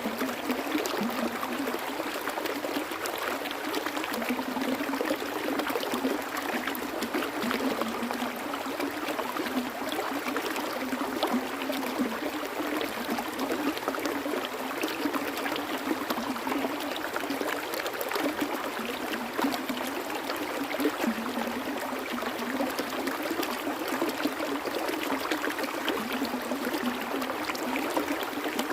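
Flowing stream water: a steady rush, flecked all through with small quick splashes and gurgles.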